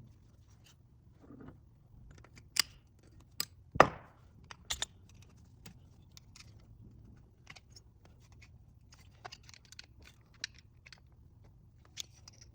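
Scattered clicks and knocks of tools and small engine parts being handled on a workbench during engine disassembly, the loudest a single knock about four seconds in.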